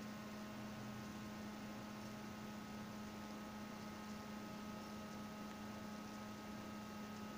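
Steady electrical hum with a faint hiss underneath: quiet room tone.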